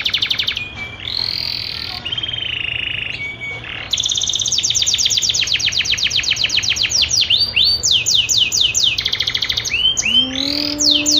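Domestic canary singing: fast trilled rolls of rapidly repeated high notes and a couple of buzzy phrases, then slower down-slurred notes near the end, where a low rising tone also sounds briefly. Offered as the call of a female canary in breeding condition, used to stir other canaries.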